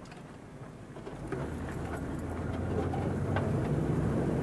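Car engine and road noise heard from inside the cabin, building steadily from about a second in as the vehicle pulls away and gathers speed.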